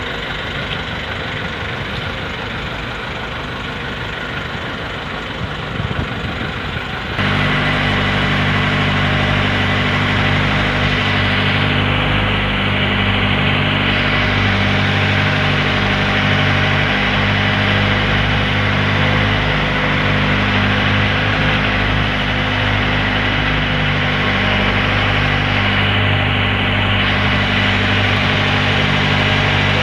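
Outrigger fishing boat's engine running steadily with the boat under way, with water and wind noise over it. About seven seconds in, the engine note turns abruptly louder and steadier.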